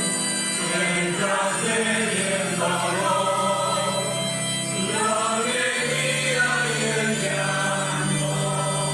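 Church choir and congregation singing a Spanish offertory hymn at Mass, over held accompaniment notes. The low note drops to a lower pitch about six seconds in.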